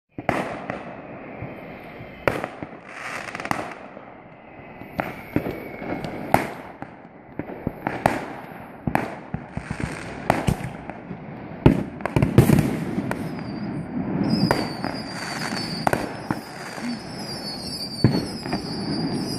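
Fireworks display: a string of sharp bangs from bursting aerial shells at irregular intervals, often one or two a second, the loudest about twelve seconds in. From about fourteen seconds in, high wavering whistles join the bangs.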